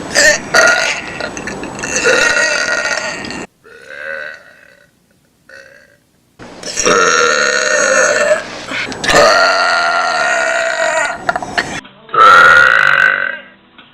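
A person burping: a run of long, loud, drawn-out burps, some lasting two seconds or more, with two faint short ones in a lull around the middle; some start and stop abruptly.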